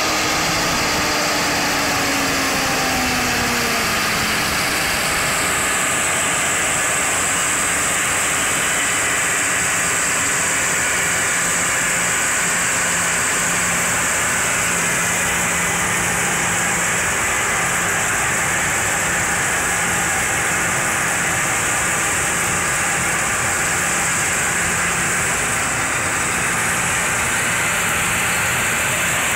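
A John Deere tractor pulling a Double L potato harvester through the field, running steadily: engine noise mixed with the clatter of the harvester working through the soil. The engine note drops a little over the first few seconds, and a steady high hiss sits over it from about five seconds in.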